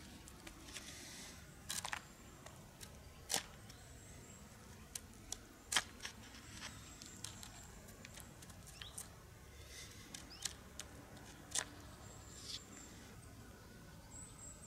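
A knife blade scraping hardened resin off conifer bark: scattered short, faint scrapes and clicks a second or more apart.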